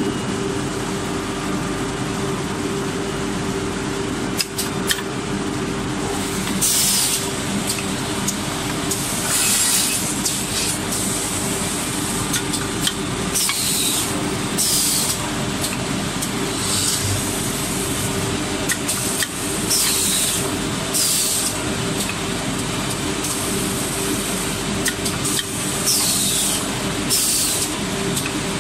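Automated pine-board drilling and dowel-inserting machine line running, with a steady motor hum and a constant tone. Over it, short hisses of compressed air venting from the pneumatic clamp cylinders come in pairs about a second apart every five or six seconds, along with scattered clicks of the cylinders and clamps.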